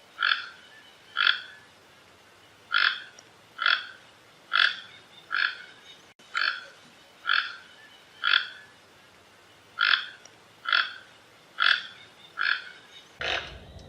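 Toucan calling: a series of short calls repeated about once a second, with a slightly longer gap partway through.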